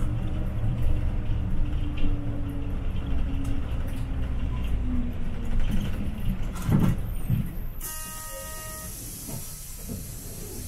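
City bus engine rumbling under way, dropping lower about seven seconds in as the bus slows. About eight seconds in a long air hiss starts, typical of the bus's air brakes or door pneumatics, with a short tone sounding briefly at its start.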